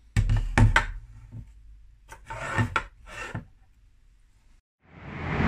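Metal body of a vintage hair drier scraping and knocking on a stone countertop as it is slid and set down, in two short bouts. Near the end a rising whoosh swells in.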